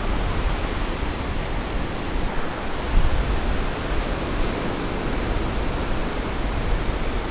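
Surf washing up onto a sandy beach: a steady rushing noise with a low rumble underneath.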